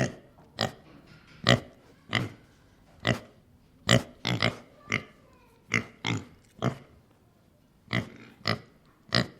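A pig snorting in short, separate snorts, about fifteen of them at an uneven pace of one every half second to a second, with a brief pause near the end.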